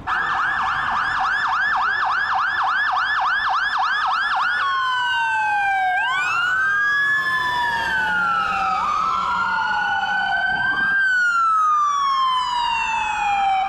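Loud fire truck siren: a fast yelp, about four rises and falls a second, for the first four and a half seconds, then a slower wail rising and falling every two to three seconds.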